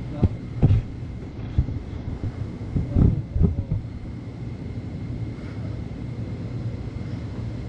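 Handling noise from a handheld camera: several low thumps and knocks in the first few seconds, then a steady low rumble.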